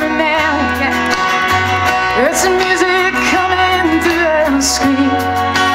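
Live country-folk song: a woman singing a slow melody with vibrato and slides into notes, over strummed acoustic guitar and a small band with bass.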